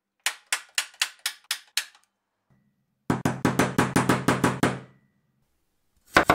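A train of short percussive strikes: seven sharp metallic taps of a hammer on a centre punch into sheet metal, about four a second; after a pause, about a dozen quicker hammer knocks on a wooden block over nearly two seconds with a low hum beneath; then, near the end, rapid chef's-knife chops through a carrot on a wooden cutting board begin.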